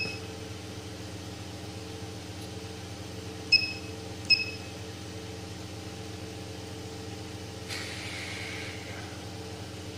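Touchscreen beeper of a Lerdge S 3D-printer control board, giving a short high beep with each tap on the menu. One beep comes right at the start and two more close together about three and a half seconds in. A steady low hum runs underneath, and there is a brief rustle near the end.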